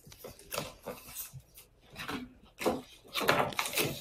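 Pages of a picture book being handled and turned: a run of short, irregular paper rustles and soft knocks, busiest and loudest near the end.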